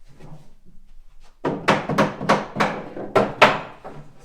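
A sliding wooden wedge being knocked into place on an antique pine wardrobe's side: about eight sharp wooden knocks in quick succession, starting about a second and a half in, then a few lighter taps.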